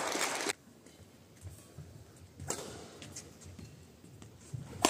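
A loud voice cut off abruptly about half a second in, then a quiet hall with a few scattered taps. Near the end comes a sharp crack: a badminton racket striking the shuttlecock on the serve as the next rally begins.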